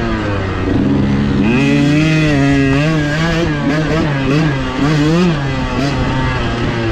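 Dirt bike engine heard on board while riding a rough trail, its pitch rising and falling again and again with the throttle.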